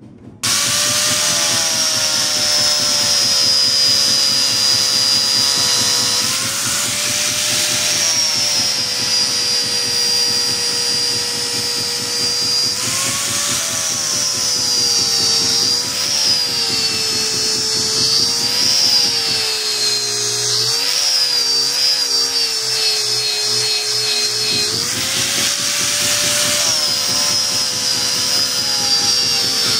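Electric power tool motor running with a high whine that starts abruptly about half a second in, its pitch repeatedly dipping and recovering as it is loaded against the steel blank.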